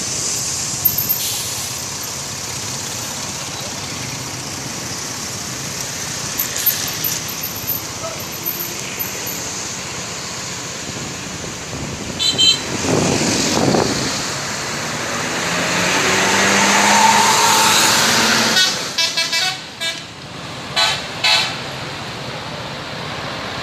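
Steady road traffic with buses passing, two swelling up and fading about halfway through. A bus's multi-note 'telolet' horn sounds in short, pulsing bursts a few seconds before the end.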